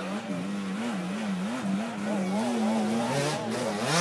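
Racing engine revving, its pitch swinging up and down over and over, with a second engine note joining about two seconds in.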